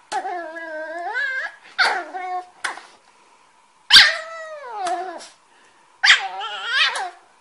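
A dog vocalizing in a run of about five whining calls that bend up and down in pitch, with short pauses between; the loudest, about four seconds in, slides down in pitch.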